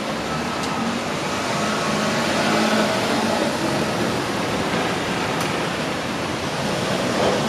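Steady rushing noise of passing vehicles, with a faint hum that swells about two to three seconds in and two faint ticks, one near the start and one about five seconds in.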